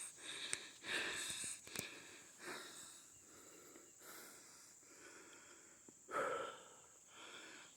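A man breathing close to the microphone, with a few soft whispered swells and faint clicks.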